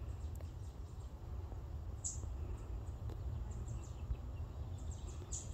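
Woodland ambience: a few short, high-pitched bird chirps, one about two seconds in and a small cluster near the end, over a steady low rumble.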